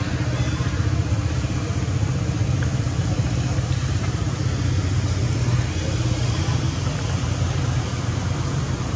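Steady low rumble of an engine idling, with a faint hum of steady tones above it.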